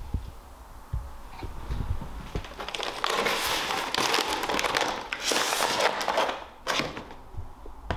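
Footsteps thumping on a wooden floor, then a few seconds of loud crinkling and scraping as a worn Mastercraft sandpaper pack is handled and laid on a wooden table, ending in a couple of short knocks.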